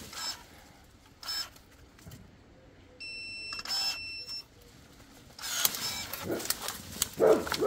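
Kebtek KTE-35 cordless pruning shears' brushless motor whining for about a second and a half as the blade closes through a dry branch, with a sharp crack as the cut goes through. Branches and leaves then rustle and crackle near the end.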